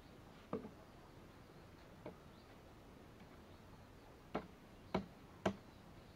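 Sharp plastic knocks of blue PVC pipe and an elbow fitting being handled and pushed together: five knocks, the last three coming about half a second apart.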